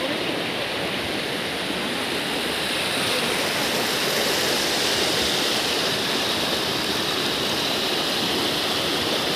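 Mountain stream rushing over rocks in a small waterfall: a steady noise of falling water that grows a little louder and brighter about three seconds in.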